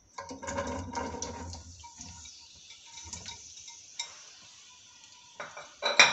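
Sliced onions tipped from a glass bowl into a nonstick pot of warm oil: a tumbling rustle for the first couple of seconds, then scattered clinks as the bowl is shaken out over the pot, and a sharp knock near the end.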